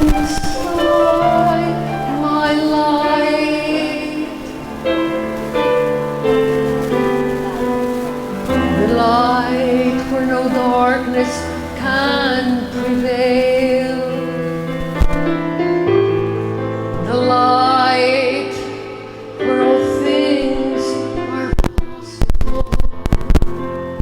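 Worship music: held keyboard chords under a woman singing a slow melody with vibrato, with a few sharp hits near the end.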